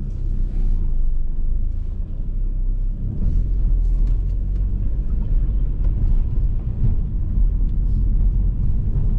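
An Audi TT on the move, heard from inside the cabin: a steady low rumble of engine and road, with a few faint light clicks.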